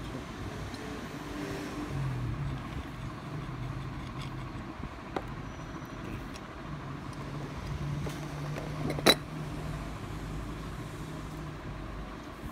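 Small metal spray-gun parts handled on a cardboard box, giving a sharp click about nine seconds in and a fainter one about five seconds in, over a steady low background hum.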